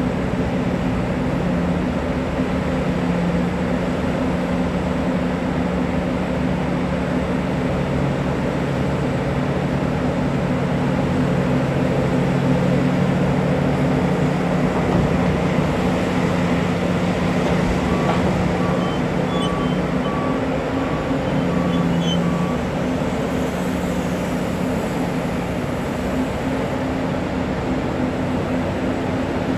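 Large diesel engines of mining machinery (a Liebherr R9350 excavator and a haul truck) running steadily under load, a deep continuous drone. A faint series of short, evenly spaced beeps sounds briefly just past the middle.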